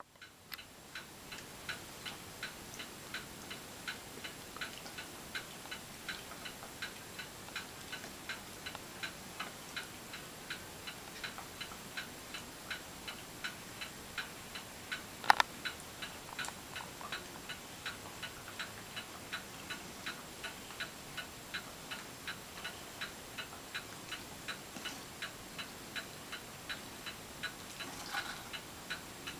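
A clock ticking steadily, about two and a half ticks a second, with one sharper click about halfway through.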